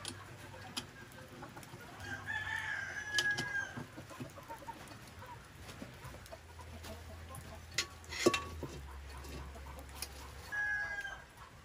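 A rooster crowing, one long crow about two seconds in and a shorter one near the end. Sharp metal clanks of a cooking pot and a steel wok being moved on a stone hearth, the loudest about eight seconds in.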